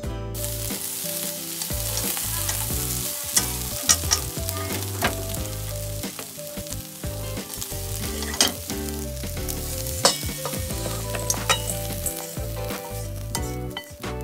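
Lotus root slices and shirasu whitebait sizzling in a non-stick frying pan while being stirred with wooden chopsticks, with frequent sharp clicks of the chopsticks against the pan. The sizzle comes up just after the start.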